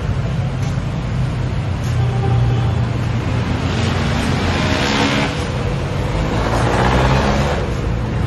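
Road traffic: a steady low engine rumble with vehicles passing close by, the rush of tyres and engine swelling about halfway through and again a little later.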